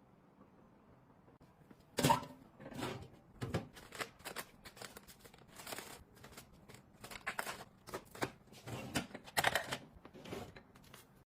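Near silence at first, then from about two seconds in a busy, irregular run of short rustles, taps and clicks from things being handled. It stops abruptly near the end.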